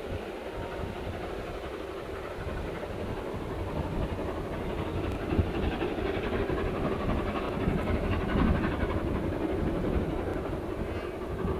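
Steam-hauled train running on the line: a continuous rumbling that grows louder through the middle and eases off near the end.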